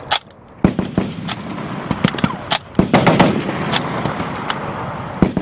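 Machine-gun fire on a range: loud shots at irregular intervals, with a short quick run of shots about three seconds in. The shots carry a ringing echo.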